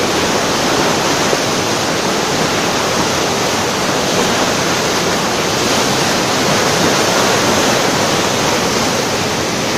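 Floodwater of the swollen Kifisos river rushing past in a fast, debris-laden torrent: a steady, loud, unbroken rush of water.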